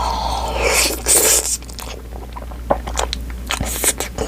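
Close-miked eating of spicy buldak ramen and rice: a breathy stretch of mouth noise in the first second and a half, then chewing with short wet clicks.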